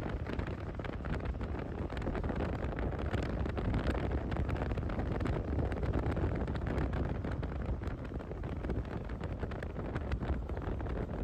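Wind rushing and buffeting over the microphone of a moving motorcycle: a steady low rumbling rush with no let-up.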